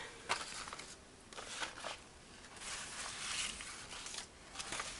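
Cardstock and paper scraps being moved and shuffled on a work table: irregular bursts of rustling and sliding, with a few light taps.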